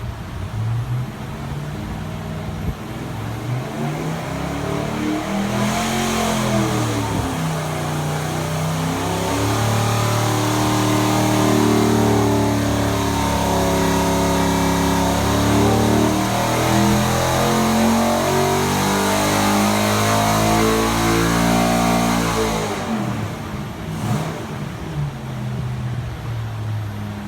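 Rebuilt GM 6.0-litre LS V8 with ported cylinder heads and a custom cam on a power test. It idles, blips the throttle a couple of times, then makes a long full-throttle pull of about fourteen seconds up to around 6,600 rpm. The throttle then snaps shut and it drops back to idle.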